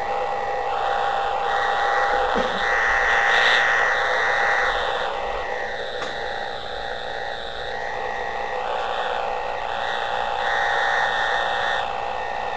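Radio noise from Jupiter heard through a radio receiver: a steady rushing hiss that swells and fades every second or two, with faint steady whistle tones underneath.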